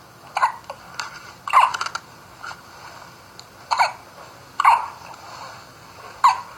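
A baby hiccuping five times at irregular intervals of one to two seconds. Each hiccup is a short, sharp catch of breath that dips slightly in pitch.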